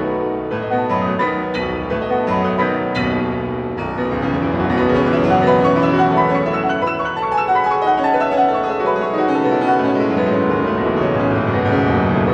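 Solo piano playing, with full chords and then rapid runs of notes sweeping up and down the keyboard.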